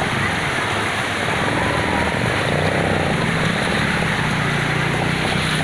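Floodwater rushing and splashing as it flows fast over a street, with a motorcycle engine running underneath as a low, steady hum.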